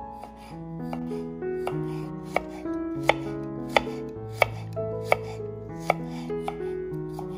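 Piano melody with a regular series of sharp knocks, about three every two seconds, starting about two seconds in.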